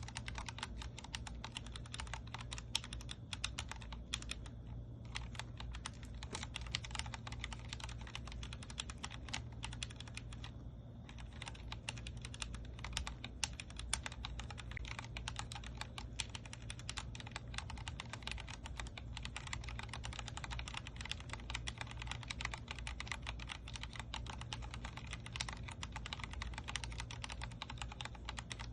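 Steady fast typing on a Vortex Core 40% mechanical keyboard with Cherry MX Speed Silver linear switches: a dense run of keystroke clacks, broken by brief pauses about five and eleven seconds in.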